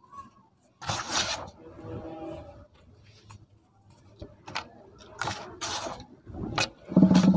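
Handfuls of dry, crumbly cement scooped up and dropped back onto a heap in a basin, falling in several short rushes: one about a second in, two more later on, and the loudest near the end.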